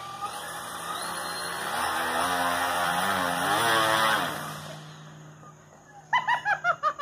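Electric paramotor's twin propellers on electric motors spinning up with a whir that rises, wavers in pitch as the throttle is worked, and winds down about five seconds in. A person laughs in short bursts near the end.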